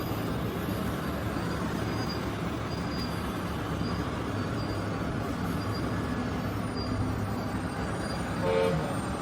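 Radio-controlled model construction machines running: a steady mechanical hum and whir, with a short horn-like toot near the end.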